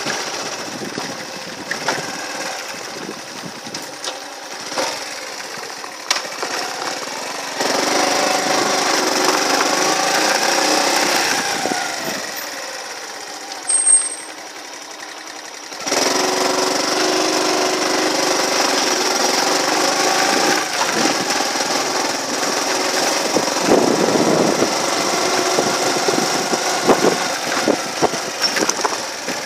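Small motorbike engine running while riding. It picks up about a quarter of the way in, rises and then falls away near the middle, eases to a lower, quieter run, and picks up again a little past halfway.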